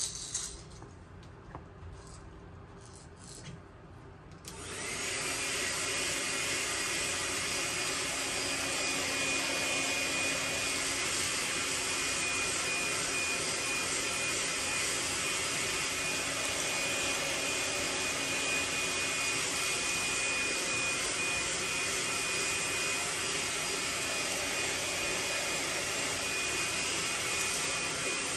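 A hot-air blower switches on about four seconds in, after a few light clicks, and then blows steadily with a faint high whine. It is heat-setting the airbrushed paint on a lure.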